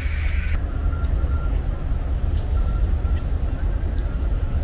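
Steady low rumble of ferry deck ambience, with the ship's machinery running at the dock and wind on the open top deck. A hiss stops suddenly about half a second in, and a faint high tone comes and goes.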